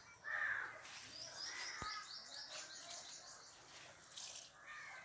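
Birds calling and chirping, with a quick run of high, repeated chirps, about five a second, from about a second in and lasting a second and a half.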